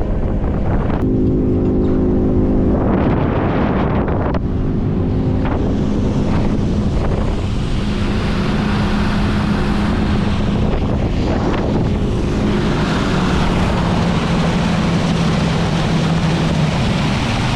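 Small boat's outboard motor running under way with a steady engine note, over rushing water and wind on the microphone. The engine note steps a little lower in the second half.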